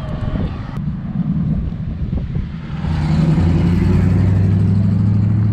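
1979 Chevy C10 pickup's engine running through its newly fitted header exhaust, which has no turn-downs. About three seconds in, the engine note picks up and holds a louder, steady drone.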